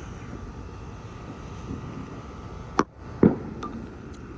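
Steady background noise with two sharp knocks or pops about half a second apart, a little past the middle, followed by a couple of faint clicks.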